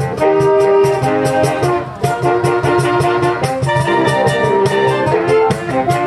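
Saxophone ensemble playing a Latin suite: held chords from the saxophones, changing every second or so, over a steady percussion beat.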